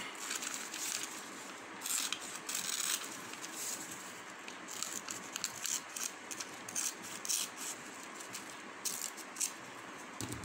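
Scissors snipping through magazine paper, with the sheet rustling as it is handled, in irregular bursts.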